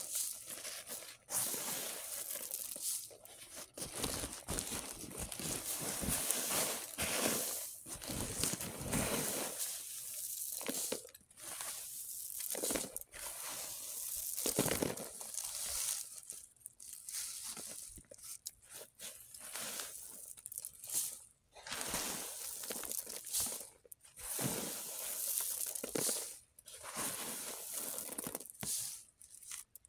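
Threshed black beans with dry crumbled leaves and pod chaff being scooped and stirred by hand on woven plastic sacking: a dry crunching rustle that comes and goes in irregular handfuls.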